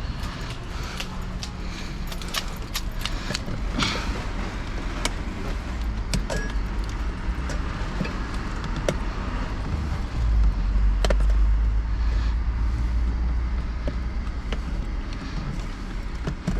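Scattered metallic clicks and clinks of hand tools and small metal parts as the truck's control module is pried loose and handled with a flat screwdriver. A low rumble swells about ten seconds in and lasts a few seconds.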